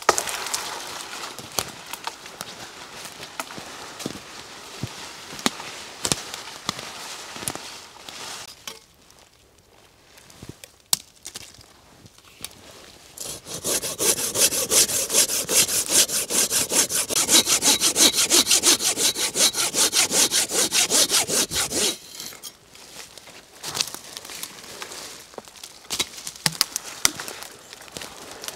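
Hand saw cutting through a thin tree trunk: about eight seconds of quick, even back-and-forth strokes, starting about halfway through, at roughly two to three strokes a second. Before and after it come scattered sharp cracks of sticks and rustling in dry leaves.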